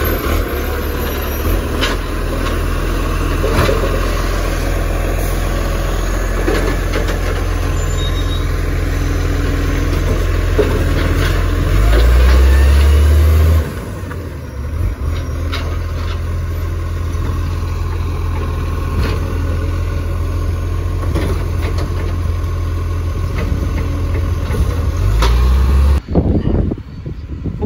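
Superior Pak side-loading garbage truck's engine running close by, with scattered knocks and clanks. It goes louder for a second or two about halfway through, then drops back, and the sound cuts off abruptly near the end.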